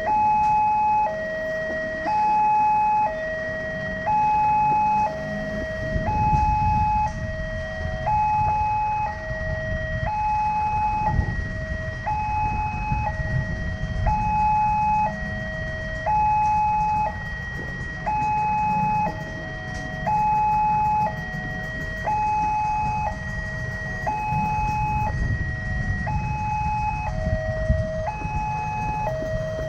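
Railway level-crossing warning siren sounding a two-tone hi-lo warble, the pitch switching about once a second, warning that a train is approaching. A low rumble underneath grows louder from about six seconds in.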